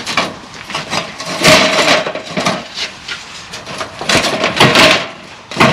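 A long sheet-metal capping on top of a block wall scraping and clanking as it is pushed and tugged along to slide it off, with two longer scrapes about a second and a half in and around four seconds in and short knocks between. It does not come free, being still held by rivets.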